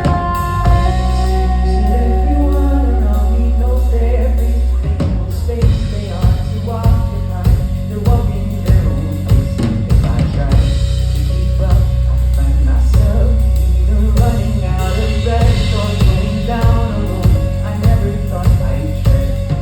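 Live band playing a song: bass and melody with a singer, and a drum kit that comes in with a steady beat about five seconds in.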